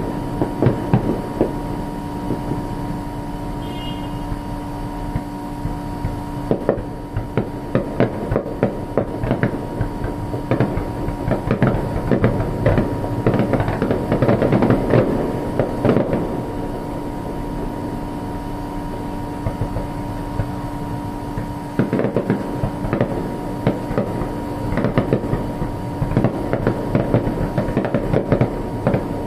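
Fireworks bursting and crackling in rapid, dense volleys of pops and cracks, heaviest about halfway through and again near the end, with a short lull between.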